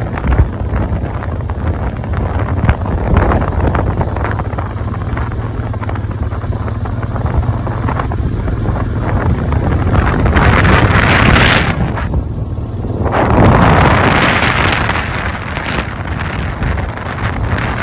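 Blizzard wind buffeting the microphone: a steady low rumble with two loud gusts of rushing noise, the first about ten seconds in and the next a couple of seconds later.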